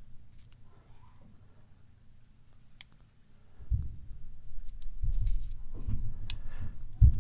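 Scattered small sharp clicks of tools and metal parts on a Master Lock 930 padlock being worked apart. Dull low knocks and rubbing of handling start about halfway in.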